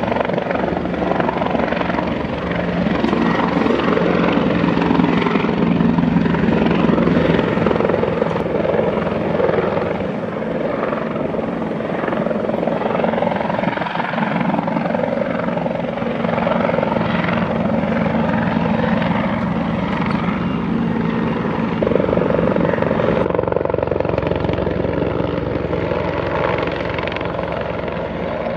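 Bell 412 four-bladed twin-engine helicopter flying past, its rotor and turbine noise steady and loud, changing abruptly a few times as different passes follow one another.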